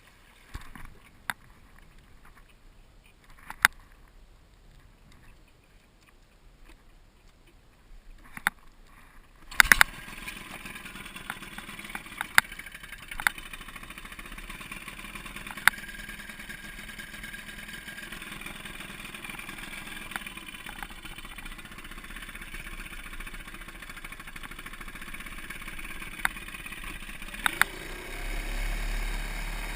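Sears Gamefisher 7.5 hp outboard motor on an aluminum jon boat: quiet at first with a few knocks, then a loud clatter about ten seconds in, after which the motor runs steadily with occasional knocks. The running sound grows louder near the end.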